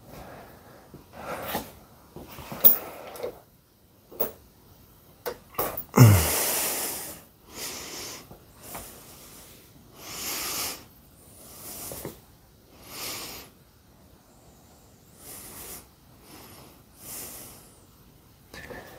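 A person breathing hard in short, hissy huffs that repeat roughly every second or so, with one loud sneeze-like burst about six seconds in. A few sharp clicks come before it.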